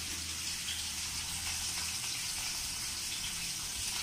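Water running steadily from a kitchen tap, a constant hiss.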